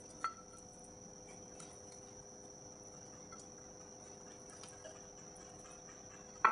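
Faint, steady high-pitched whine with a lower hum beneath it, and a few soft taps as fried eggplant slices are laid into a glass baking dish, the sharpest tap about a quarter second in.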